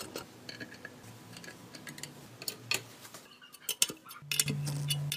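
Light metallic clicks and ticks of steel spokes knocking against each other and the rim as spoke nipples are threaded on while a motorcycle wheel is laced. About four seconds in, a steady low hum starts and is louder than the clicks.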